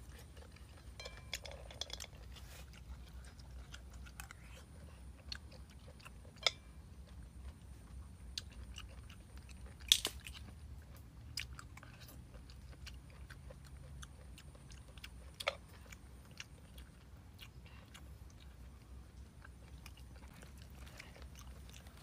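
A person eating boiled mud clams close to the microphone: soft chewing and mouth sounds, with scattered sharp clicks as the clam shells are handled, the loudest about ten seconds in.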